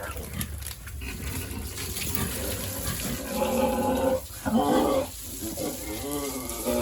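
Pigs calling, several pitched calls that begin about three seconds in and come again near the end, with a short break between them.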